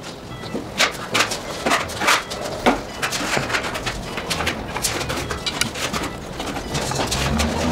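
Steel plastering trowel scraping and clicking against a chipboard panel as it spreads thick decorative plaster, in short irregular strokes. Near the end a low steady hum comes in.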